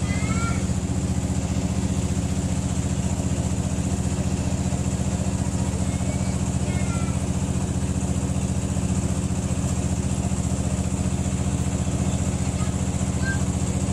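A small engine idling steadily, with a fast even beat and no change in speed. A few short, faint high chirps come over it.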